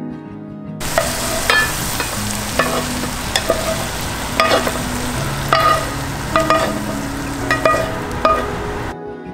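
Chopped lobster sizzling in a hot nonstick pan, with a plastic spatula stirring and scraping it against the pan in repeated sharp scrapes. The sizzle starts suddenly about a second in and cuts off near the end.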